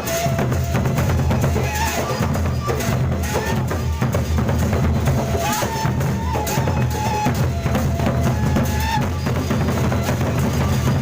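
Gendang beleq ensemble playing: large Sasak barrel drums beating a dense, continuous rhythm with clashing cymbals, under a high melody line.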